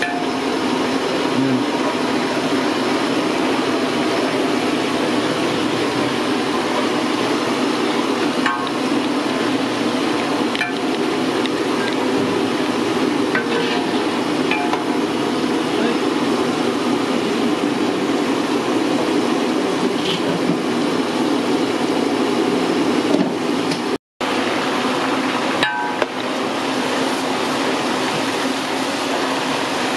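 A large aluminium biryani pot at a hard rolling boil over a burner, giving a steady rushing roar, with a few faint clinks of the metal ladle against the pot as it stirs the rice. The sound cuts out for an instant about three quarters of the way through.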